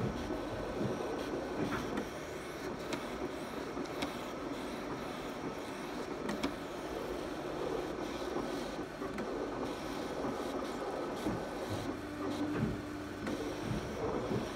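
Graphtec CE5000-60 vinyl cutter running, its motors whirring as it works, with a few light clicks and a short steady hum near the end.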